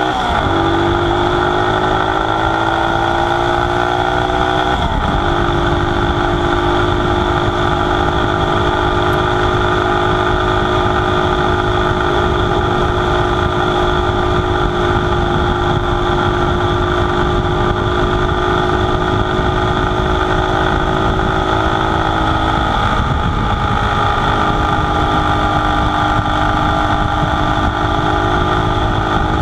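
1969 Honda SL90's small single-cylinder four-stroke engine running under way. Its revs climb and break with an upshift just after the start and another about five seconds in, then hold steady. Near the end the revs dip briefly and settle a little lower. Wind rushes over the microphone.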